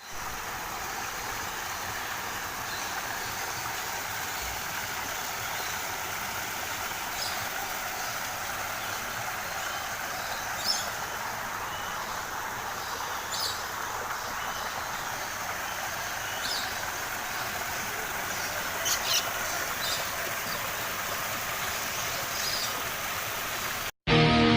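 Steady rushing outdoor noise with a handful of short, high bird calls scattered through it, the louder ones about 11 s and 19 s in.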